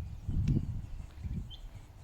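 Outdoor riverside ambience: uneven low rumbling, loudest about half a second in, with a single short high bird chirp about one and a half seconds in.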